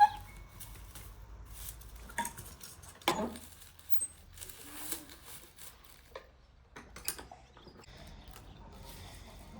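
Irregular knocks and clicks of hand work with tools and materials, likely broom-making. A sharp clink with a brief ring comes right at the start, then scattered knocks over a low background hum.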